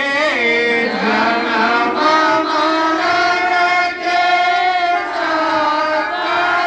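Hindi devotional aarti hymn sung by a group of voices, in long held notes that waver in pitch.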